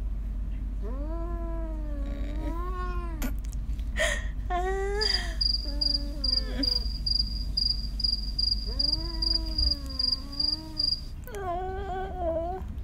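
Domestic cat giving a series of about five long, drawn-out meows that rise and fall in pitch, protesting at having its face touched.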